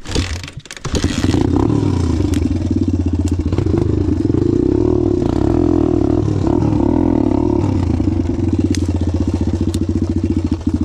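Suzuki DR-Z dirt bike's single-cylinder four-stroke engine starting about a second in, then running steadily with an even firing pulse at low throttle.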